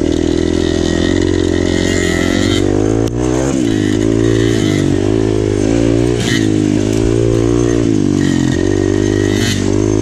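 Kawasaki dirt bike engine heard close up from the rider's own bike, its revs rising and falling about once a second as the throttle is worked. About three seconds in there is a sharp click and a brief dip in revs before they climb again.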